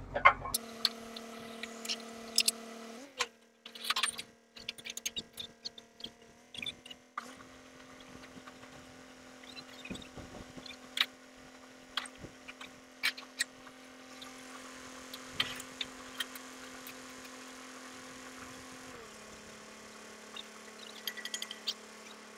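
Engine of a truck-mounted tube-well drilling rig running steadily, its pitch shifting a few times, with scattered clicks and knocks.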